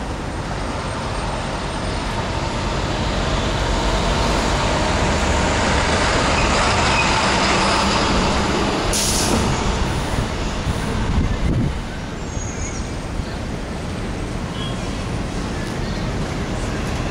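City street traffic with a heavy vehicle passing, swelling to its loudest in the middle and easing off after. A short sharp hiss comes about nine seconds in.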